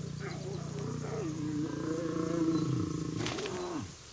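Lionesses making low, wavering rumbling calls as they lick and groom one another, the soft sound of contented lions at rest. It fades out near the end.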